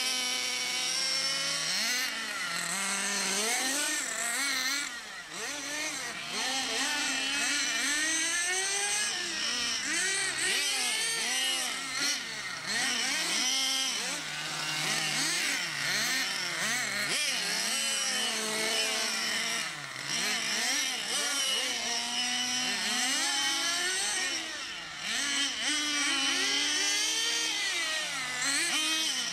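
Radio-controlled touring cars running, their motors revving up and down continually as they accelerate and slow around the course, sometimes more than one at once.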